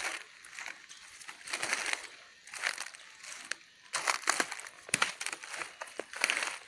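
Footsteps crunching through dry leaf litter and brushing through undergrowth, in uneven bursts of crackling that grow busier about four seconds in.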